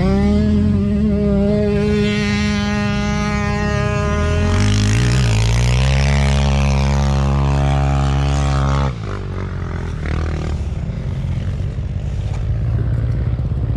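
Dirt bike engines held at high revs as one enduro motorcycle tows the other through deep sand on a strap. A second, deeper engine note comes in about four or five seconds in and runs until about nine seconds, where the revs drop suddenly to a lower, rougher running.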